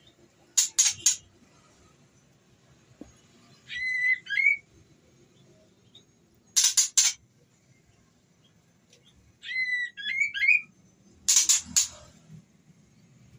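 Female white-rumped shama calling: sets of three quick harsh notes alternating with short whistled phrases, the pattern repeating every five to six seconds. These are the calls of a female in breeding condition calling to a male.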